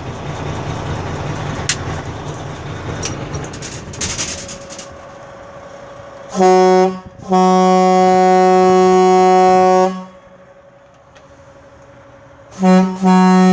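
A truck's Caterpillar 3406E diesel runs and is switched off a few seconds in. Then the air horn sounds twice in the same pattern, a short toot followed by a long steady blast of about two and a half seconds. The second pair starts near the end.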